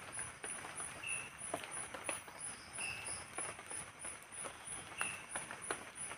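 Night forest insects: a high, fast pulsing chirp at about three pulses a second, with a shorter chirp repeating about every two seconds. Scattered light ticks and taps of drizzle dripping.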